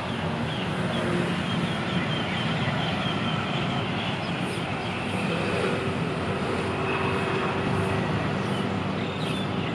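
Steady drone of the EM120N track-inspection car's diesel engine as the car rolls slowly toward the listener.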